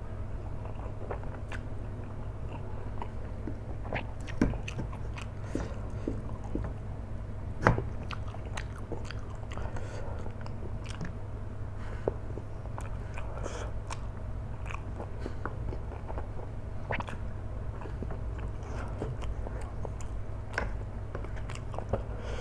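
Chewing of kwetiau flat rice noodles in Samyang hot sauce: a continual run of wet mouth clicks and smacks, with two louder clicks about four and a half and eight seconds in.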